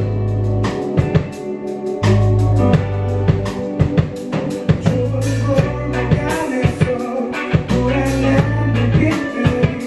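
Rock band playing live: electric guitars, electric bass and a drum kit, with long held bass notes and steady drum hits.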